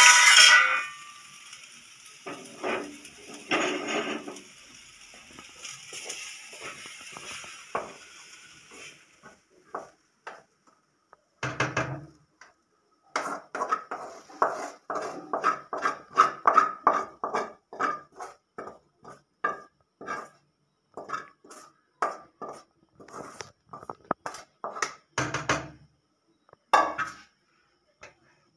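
Sizzling in a steel kadai for the first several seconds. Then comes a long run of quick knocks and scrapes: a wooden spatula hitting the steel kadai and a steel pot as the fried onion mixture is scraped out.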